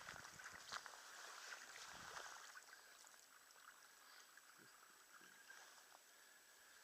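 Faint splashing and dripping water from a kayak paddle, with a few small splashes near the start, growing quieter toward the end.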